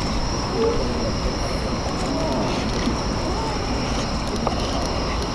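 Steady outdoor background noise: a low rumble under a constant high hiss, with faint distant voices.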